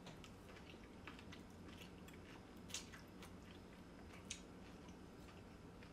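Quiet chewing of a mouthful of noodles, with a few short, soft clicks of mouth and fork scattered through it.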